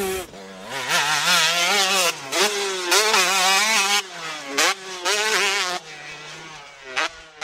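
Motocross bike engines revving hard through corners at race pace, the pitch wavering and climbing with throttle and gear changes. The sound breaks off and jumps to a new pass several times.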